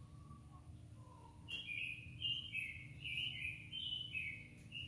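A songbird singing a quick run of short, clear chirping notes that hop up and down in pitch, starting about a second and a half in, over a steady low hum.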